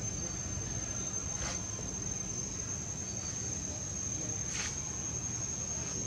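Insects droning with one steady, high-pitched whine, over a low rumble. Two brief soft noises come about a second and a half in and again near the end.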